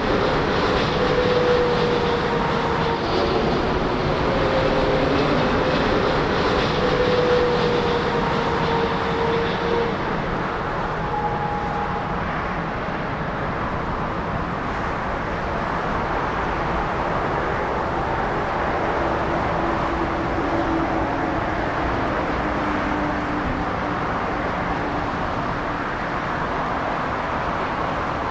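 Jet airliner engines running, a steady loud rush with faint whining tones that fall slowly in pitch over several seconds.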